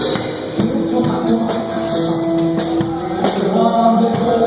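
Live church music: long held chords with drums and cymbal splashes recurring through it.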